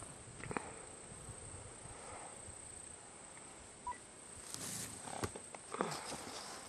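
Faint outdoor ambience: a steady, high-pitched insect buzz, with a few soft knocks and rustles in the second half.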